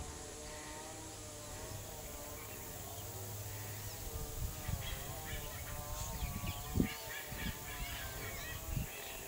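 Birds calling, with a busy run of short, quick chirps from about halfway in. A single low thump comes about two-thirds of the way through.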